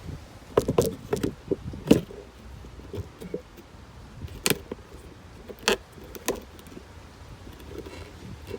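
Irregular clicks and knocks of PVC pipe and fittings being handled and set in place, a few sharp knocks at a time with short gaps between.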